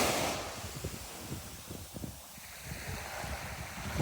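Sea surf washing onto the beach, a wave fading out in the first half second, with gusty wind buffeting the microphone.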